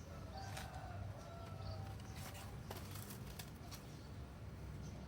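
A faint, drawn-out bird call lasting about a second and a half, over a low steady hum, with a few light clicks and taps scattered through.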